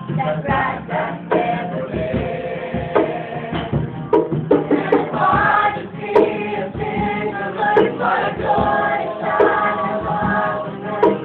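Male and female voices singing together, with music.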